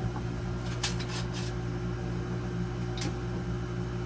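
A steady low machine hum, with a brief knock or rustle about a second in and another about three seconds in.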